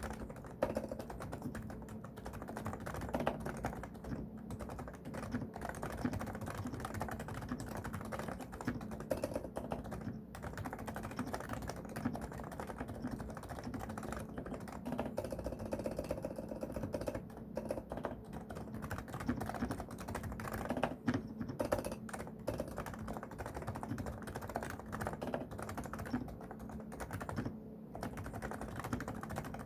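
Continuous fast typing on a Realforce R2SA silent keyboard with 45 g uniform-weight Topre electrostatic capacitive switches: soft, muted keystrokes in a dense steady stream.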